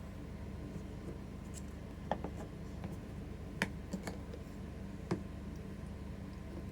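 A few light clicks and taps, four in all, over a steady low hum.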